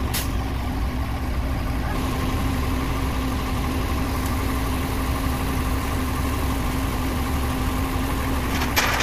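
Heavy diesel engine of a mobile crane idling steadily with a low rumble and a constant hum. There is a brief hiss just after the start and a louder burst of hiss near the end.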